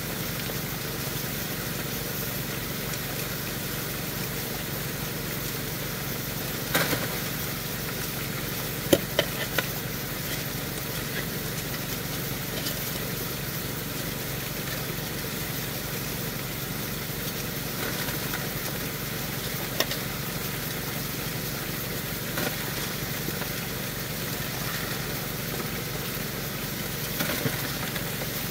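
Water rushing steadily through a high banker sluice box over a steady low hum, with a few sharp clatters as shovelfuls of pay dirt and rocks are dumped into the hopper, about seven, nine and twenty seconds in and again near the end.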